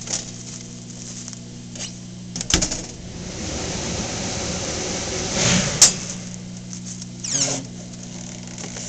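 Minipack Galileo Office shrink-wrap machine running a seal-and-shrink cycle over a steady fan hum. The hood shuts with a clack about two and a half seconds in, hot air rushes for about three seconds while the film shrinks, and a sharp click follows as the cycle ends. A short rustle of film comes as the wrapped bundle is taken out.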